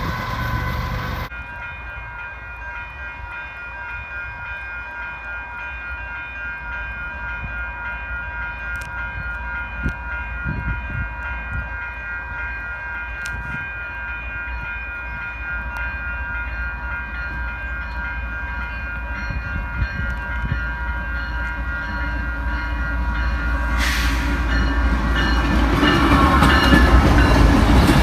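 Level-crossing warning bells ringing steadily while a diesel freight locomotive approaches with a growing low rumble. The locomotive draws level and passes close by near the end, where it is loudest.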